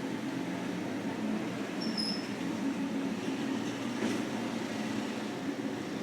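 Steady low mechanical hum, like a fan or motor running, with a brief high squeak about two seconds in.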